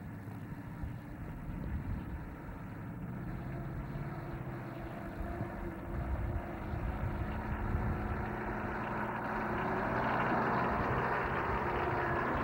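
Engines of Jeep CJ-type 4x4s running at low speed as they crawl along a muddy off-road trail, growing louder over the last few seconds.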